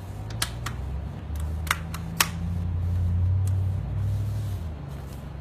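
Plastic laptop screen bezel being pressed back onto the display, its clips snapping into place as a series of sharp clicks, about six, the loudest about two seconds in. A low rumble of handling swells under them in the middle.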